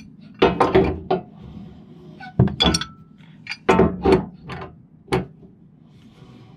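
Threaded steel gas pipe knocking and clinking against the floor joists as it is worked into place: four irregular clusters of sharp metallic knocks, with a brief ring near the middle.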